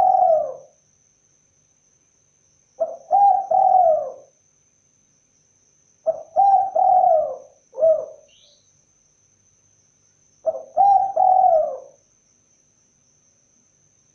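Spotted dove (tekukur) cooing: a multi-note coo phrase of about a second and a half, repeated roughly every three and a half to four seconds. There are three full phrases here, the third followed by one short extra note.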